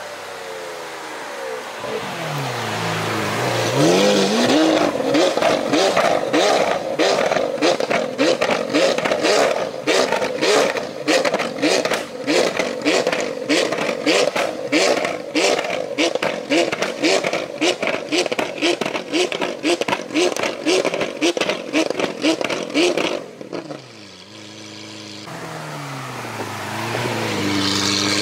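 Lamborghini Aventador SV's V12 engine through a catless Fi Exhaust system. The engine note drops as the car slows, then from about four seconds in it is revved in quick repeated blips, each followed by sharp crackles and pops from the exhaust. The revving cuts off suddenly near the end, the engine settles to a lower note, and then the note rises again.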